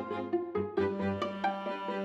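Instrumental background music: a melody of short, separate notes over a low pulsing bass line.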